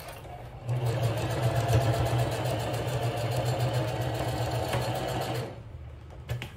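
Electric sewing machine stitching a short seam at a steady, fast speed, starting about a second in and stopping about a second before the end.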